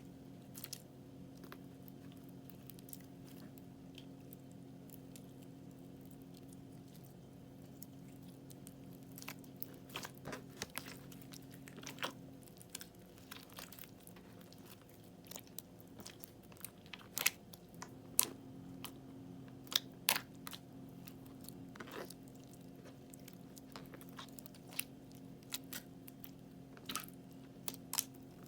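Crunchy slime crackling and crunching as it is handled: scattered sharp crackles, growing more frequent and louder from about a third of the way in, over a steady low hum.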